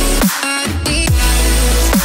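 Background electronic dance music in a dubstep style, with a heavy bass and a falling bass sweep twice.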